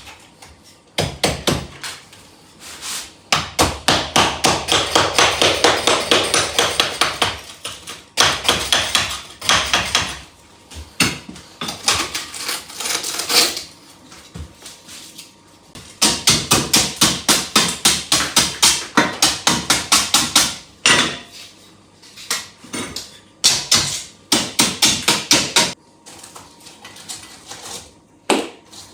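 Rapid series of hard strikes, about four or five a second, coming in bursts of a few seconds with short pauses between them.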